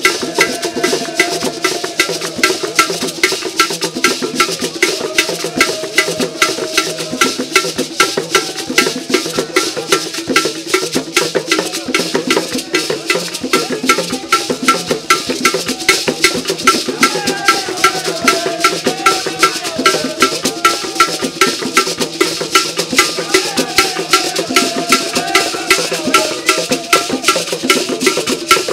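Akan traditional drum ensemble: barrel drums and gourd rattles keeping a fast, even beat of sharp strikes, with voices singing along over it.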